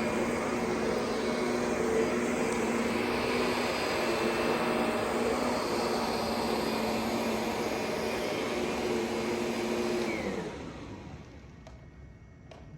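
Kirby Sentria 2 upright vacuum cleaner running steadily, then switched off about ten seconds in, its motor whine falling in pitch as it winds down.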